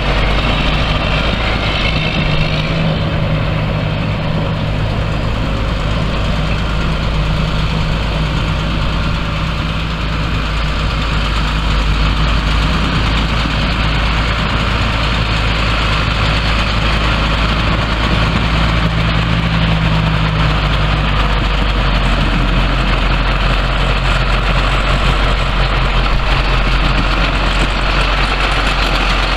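John Deere 8870 4WD tractor's six-cylinder diesel engine running at a steady speed as the tractor drives. The engine note is a little weaker in the last third.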